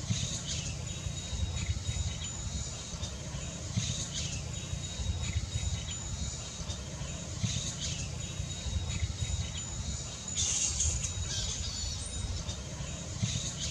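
A roosting colony of large flying foxes (Pteropus vampyrus) giving scattered high squawks every few seconds, with a longer bout about ten and a half seconds in. Underneath run a steady high whine and a low rumble.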